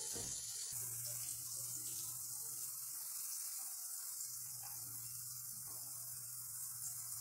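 Oil sizzling steadily as chicken nuggets fry in a wok, a steady high hiss over a low hum, growing fuller just under a second in.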